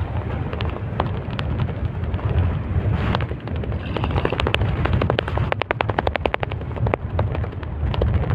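Strong wind buffeting the microphone with a steady low rumble, overlaid by fast runs of sharp crackling clicks, thickest past the middle.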